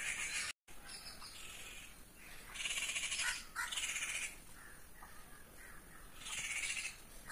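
A crow cawing: about four caws of under a second each, a couple of seconds apart.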